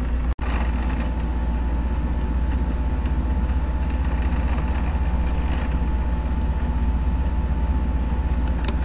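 Steady low rumbling hum, strongest in the bass, with a faint steady tone above it; it drops out for an instant just after the start.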